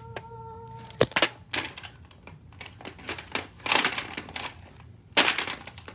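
Hard plastic toy track pieces of a Hot Wheels Monster Trucks Wreckin' Raceway set clicking and clattering as they are handled and fitted together. There are irregular clusters of sharp clacks, the loudest about a second in and again near the end.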